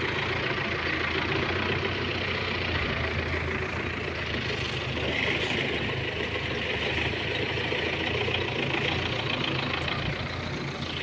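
An engine running steadily, as at idle.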